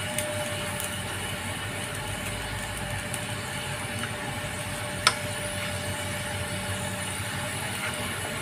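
Steady hum and hiss from a gas stove heating a pot of meatball broth, with a faint steady tone that stops near the end. One sharp click about five seconds in as another meatball is put into the pot.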